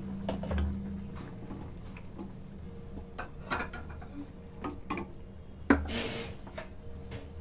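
A spatula stirring chicken curry in a metal kadai, clinking and scraping against the pan in scattered knocks, over a steady low hum. Near the end comes a sharp clack and a short scrape as the spatula is laid down in the pan.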